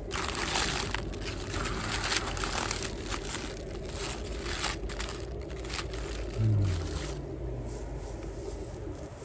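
Mini napa cabbage leaves rustling and crinkling as a hand parts them and pushes into the head, for about the first six seconds. A short low hum comes in about six and a half seconds in.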